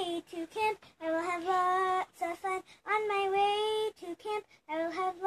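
A boy singing a song unaccompanied, holding each note for about a second in short phrases broken by brief pauses.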